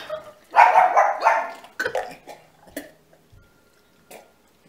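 A person's loud gagging outburst of disgust about half a second in, after chewing a foul-flavoured Bean Boozle jelly bean, followed by a few quieter short sounds.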